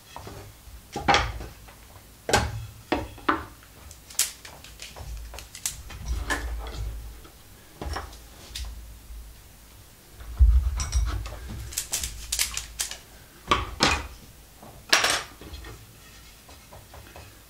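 Wooden sticks and hand tools handled on a wooden tabletop: a scattered series of knocks and clatters as pieces are picked up and set down, with a dull low rumble of the table being bumped about ten seconds in.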